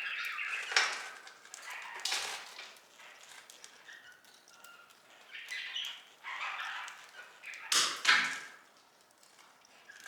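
Pet budgerigars chirping and chattering softly on and off, with a few louder noisy bursts: one about a second in, one about two seconds in, and a loud double burst near the end.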